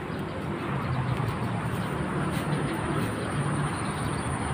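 Steady rumble of traffic on an elevated toll road overhead.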